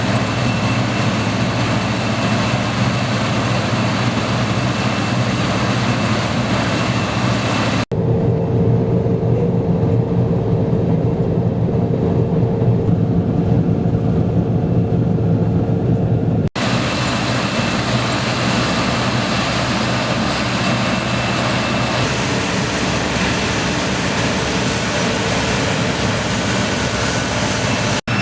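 Deutz-Fahr TopLiner 8 XL combine harvester running while cutting wheat: a steady, loud machine drone with a thin high whine. The sound changes abruptly twice; the middle stretch is deeper and less hissy.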